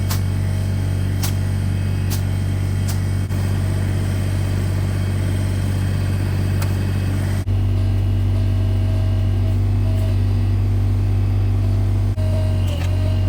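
Bobcat E32 mini excavator's diesel engine running steadily at work, with a few sharp clanks. Its tone shifts abruptly about halfway through.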